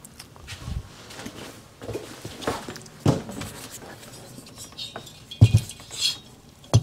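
Clinks and knocks of metal being handled on a workbench: a two-stroke motorcycle cylinder picked up and a dial bore gauge's probe head set into its bore. The knocks are scattered and irregular, the loudest a little past five seconds in and again near the end.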